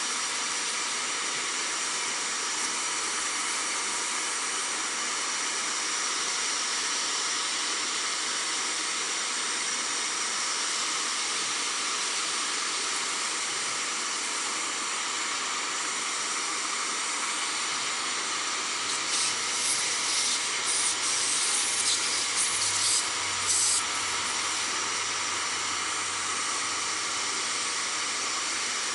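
Small shop vacuum running steadily, its thin hose drawing dust out of a tube radio's chassis. Between about 19 and 24 seconds in, several brief louder, higher hissing surges come as the nozzle pulls at the dirt.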